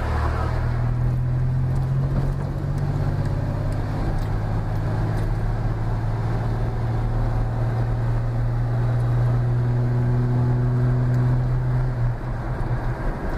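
Car engine and road noise heard from inside the cabin while driving: a steady low drone whose note shifts near the end.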